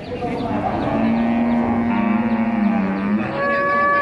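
Cattle mooing: one long low moo of about two seconds that drops slightly in pitch at its end, then a shorter, higher call near the end.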